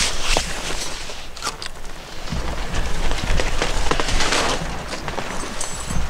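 Camouflage fabric of a pop-up ground blind rustling and crackling as it is handled in strong wind, with many sharp crinkling clicks. Wind buffets the microphone in low gusts from about two seconds in.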